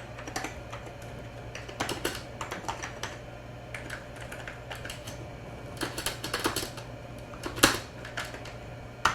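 Typing on an Amiga 2000 computer keyboard: irregular key clicks in short runs with pauses between, as text is entered into the Say speech program.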